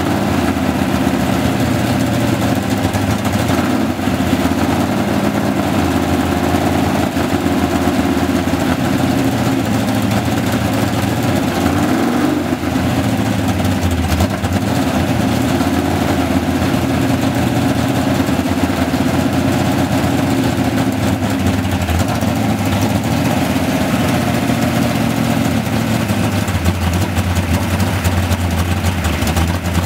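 Dodge Coronet 500's Hemi V8 with dual four-barrel carburettors running loudly, mostly at idle, with a few revs now and then.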